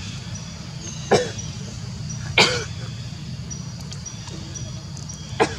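Long-tailed macaques giving three short, harsh coughing barks: one about a second in, a louder one a moment later, and a third near the end.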